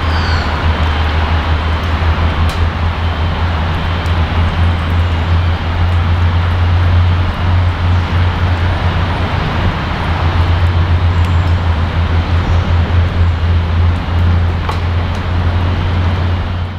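Diesel-electric locomotive engine running steadily close by, a deep drone with a fast pulse.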